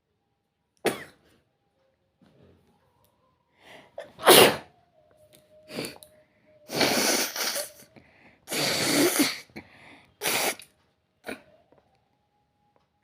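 A person sneezing about seven times. The loudest, sharpest sneeze comes about four seconds in, and two longer, drawn-out ones follow a few seconds later.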